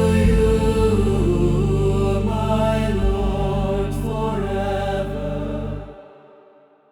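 Choral worship music: a choir sustaining slow chords over a steady low drone, which falls away about six seconds in and fades out to silence.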